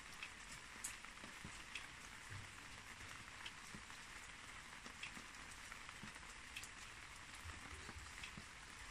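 Light rain: a steady soft hiss with scattered drip ticks, about one or two a second.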